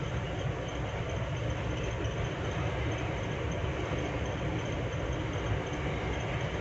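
Freight train rolling through: a steady rumble of wagons and wheels on the rail that holds even throughout, with a faint high steady whine over it.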